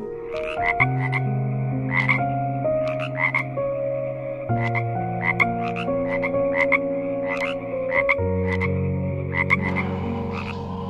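Frog croaking in short, irregular calls, roughly two a second, over background music with held chords.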